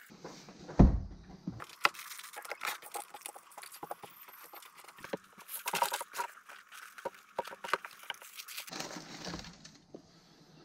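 Hands shuffling and tapping pieces of cardboard on a wooden tabletop: a quick run of light clicks, taps and scrapes, with one heavy thump about a second in.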